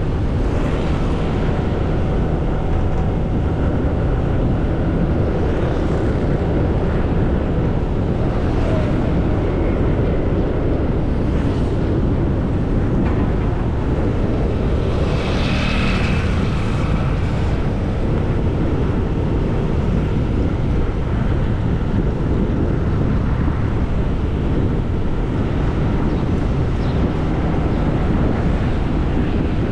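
Steady rumble of wind on the microphone and road traffic while riding along a city street, with a brief higher-pitched sound about halfway through.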